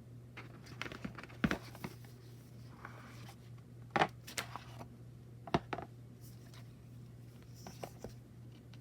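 Oracle cards being handled in a flip-through: light rustles and sliding, with three sharper taps or clicks about a second and a half, four, and five and a half seconds in. A faint steady low hum runs underneath.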